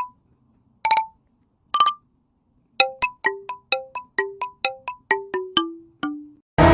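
A melody of short plucked or struck notes, like a ringtone tune: three spaced notes, then a quicker run that steps down in pitch near the end. Louder, fuller music comes in right at the very end.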